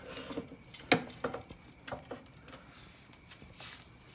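Metal parts and tools being handled: a few scattered light knocks and clicks, the sharpest about a second in.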